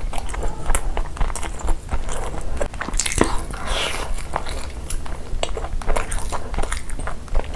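Close-miked eating: biting into and chewing a tandoori chicken leg topped with mayonnaise, with many short mouth smacks and clicks, busiest about three to four seconds in.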